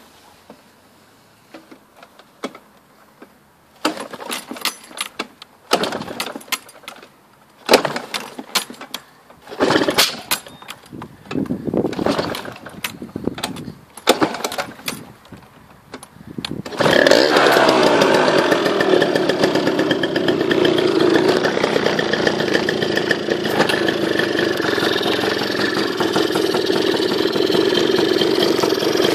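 Aprilia SR125 scooter's 125 cc engine on a cold start. First comes a series of short, irregular bursts of noise, then about 17 seconds in the engine catches and runs steadily with a rattling, buzzing note. This is the unexplained 'weird sound' on cold start that the owner is asking about.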